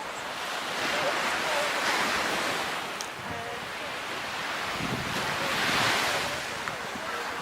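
Sea waves washing onto a sandy beach, the surf swelling and fading twice, with wind buffeting the microphone.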